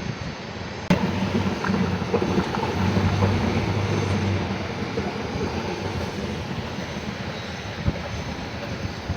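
Outdoor traffic noise: a steady wash of sound with a low engine hum that swells a couple of seconds in and then eases off. The sound changes abruptly about a second in.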